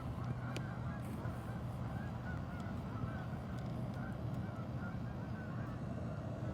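Canada geese honking, many short calls one after another. A steady low rumble runs underneath.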